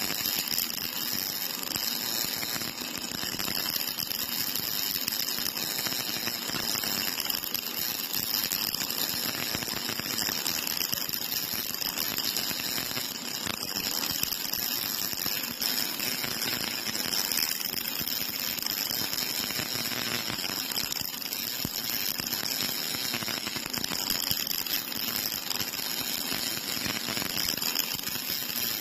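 Cobot-held MIG welding torch running a continuous arc along a vertical seam on a steel column, a steady crackling hiss with spatter.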